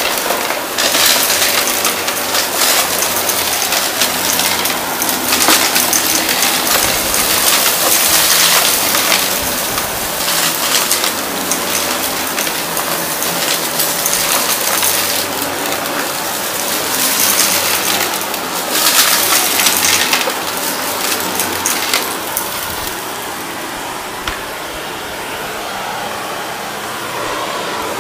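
Shark Navigator upright vacuum running over the edge of a shag rug, with debris crackling and rattling as it is sucked up over a steady motor hum. The crackling eases near the end.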